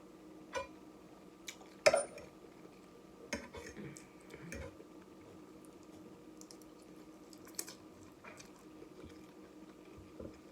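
Close-up eating sounds of spicy noodles and fish: wet chewing and squishing, with a few scattered sharp clicks, the loudest about two seconds in.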